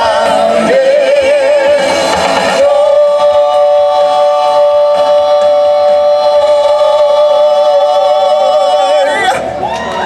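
Four singers singing in harmony into microphones, with vibrato, then holding one long final chord for about six seconds before cutting off together. The audience starts to cheer just as it ends.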